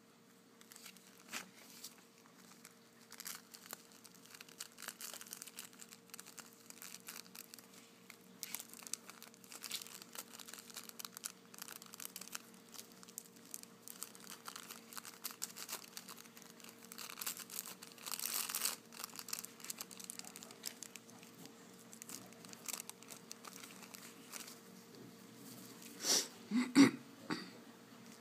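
Small plastic zip-lock bags of loose glitter being handled and crinkled: scattered soft crackles and rustles, a denser stretch of rustling about two-thirds through, and two louder handling sounds near the end. A faint steady hum runs underneath.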